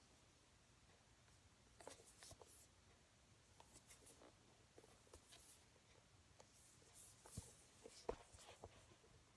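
Faint rubbing and light taps of hands handling a cardboard album box, coming in scattered short bits over near silence, with a sharper tap about eight seconds in.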